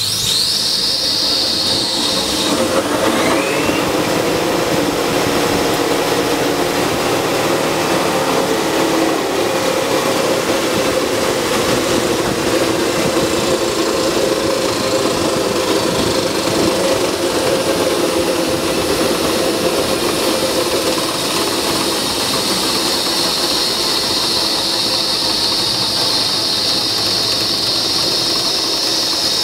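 Electric drive motor and driveshaft of a van converted to electric, spinning up in torque mode: a whine rising in pitch over the first few seconds, then steady running with a hum and a high whine. The hum fades about two-thirds of the way in while the high whine grows stronger.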